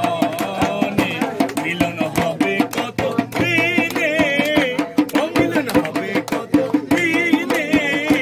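Live folk singing by a group, accompanied by a hand-beaten two-headed barrel drum (dhol) and hand-clapping, with a steady, quick beat.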